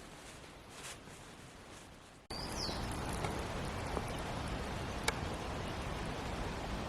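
Faint quiet background that, a little over two seconds in, switches abruptly to a steady outdoor hiss of open moorland ambience, with a short high chirp just after the switch and a few light clicks.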